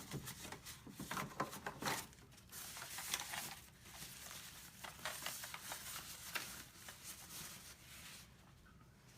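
Packaging being handled: rustling and crinkling with scattered clicks and knocks, as wrapping is torn open and parts are taken out. The rustling is densest through the middle.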